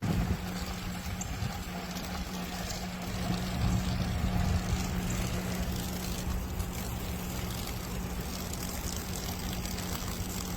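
Green Expert submersible sump pump running steadily, a constant motor hum over the rush of water it is pumping.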